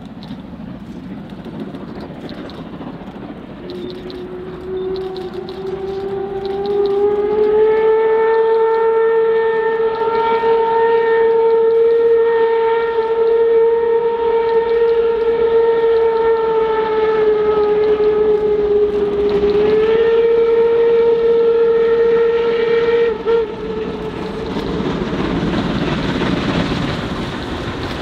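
Steam whistle of class 01.10 express locomotive 01 1075, blown as one long blast. It rises a little in pitch as it opens, holds steady, wavers briefly about 20 seconds in and cuts off suddenly about 23 seconds in. After that the locomotive's running noise and the rolling train grow louder as they come closer.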